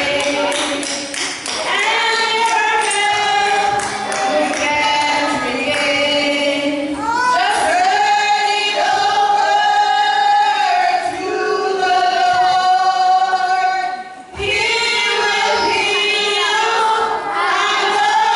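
A small women's vocal group singing in harmony through handheld microphones, with long held notes. The singing breaks off briefly between phrases about three-quarters of the way through.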